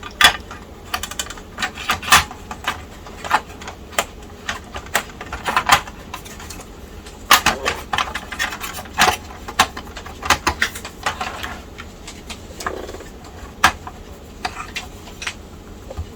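Irregular clicks and taps of hard plastic parts being handled and pressed together, a laptop's plastic cover being test-fitted over its components to check clearance.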